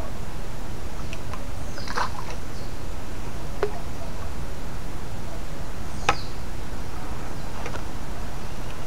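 Steady low wind rumble on the microphone by a river, with a few short sharp clicks about two, three and a half and six seconds in as corn bait is handled at the water's edge, and a couple of faint, short high chirps.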